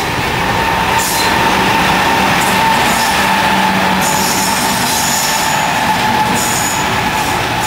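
Passenger train running close past, its WCG-2 'Howler' DC electric banker locomotives passing at the rear with a steady howling tone over the rumble of wheels on rail. High wheel squeal comes and goes from about four seconds in.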